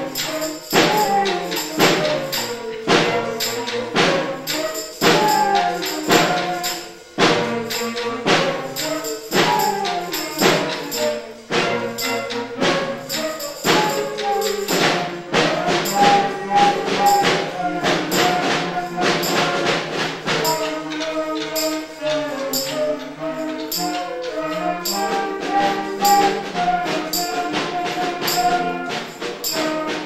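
Youth concert band playing: flutes and clarinets carry the tune over a steady percussion beat with tambourine jingles.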